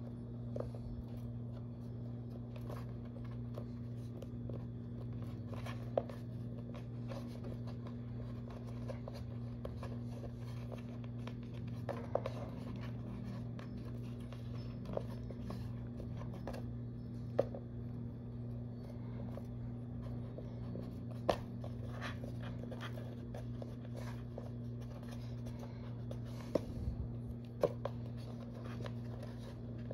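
Sculpting tools working on Sculpey polymer clay: faint scraping and scratching, with a handful of sharp clicks every few seconds, over a steady low hum.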